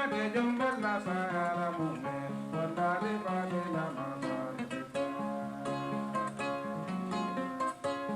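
Kora, the West African harp-lute, played in a flowing pattern of plucked notes, with a man's voice singing over it for the first couple of seconds.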